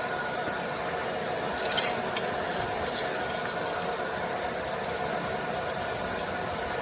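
Steady hum of a laser welding machine running, with two constant tones, broken by a few sharp metallic clinks and crackles around two seconds in, at three seconds and near the end.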